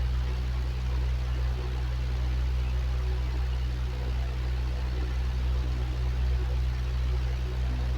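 Electric fan running steadily: a constant low hum with an even rush of noise above it.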